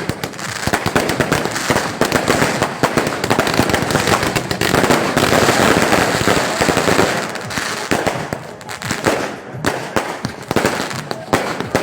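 Fireworks going off in a rapid, dense run of cracks and pops, thickest from about four to seven seconds in, then thinning to scattered bangs.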